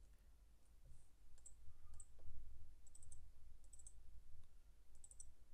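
Faint computer mouse clicks, a few single clicks and quick clusters of two or three, over a steady low hum.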